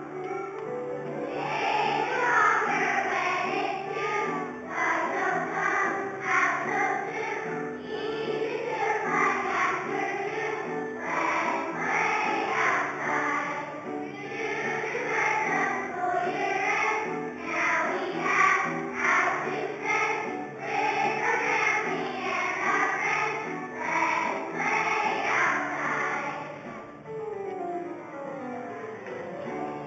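A large children's choir singing a song together with instrumental accompaniment. The voices come in about a second and a half in and stop near the end, leaving the accompaniment playing on.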